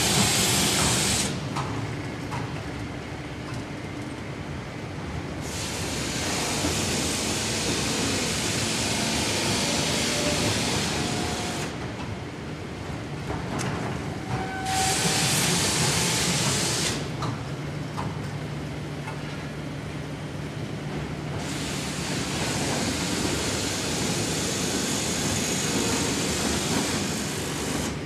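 Melamine short-cycle laminating line running, with a steady low machine rumble. Over it a loud hiss comes and goes in stretches of a few seconds: near the start, for about six seconds from the middle of the first third, briefly about halfway, and again through most of the last quarter.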